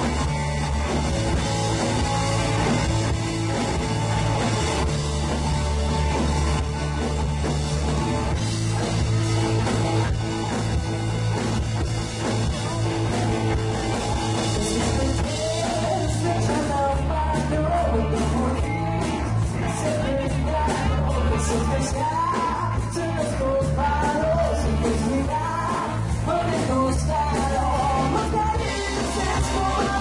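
Rock band playing live with electric guitars, heard loud through the PA; a woman's voice comes in singing about halfway through.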